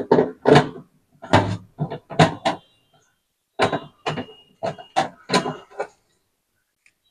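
Irregular knocks and metallic clatter from a kitchen chimney's metal mesh grease filter being unscrewed and worked loose from the hood, coming in three uneven bunches with a faint ring now and then.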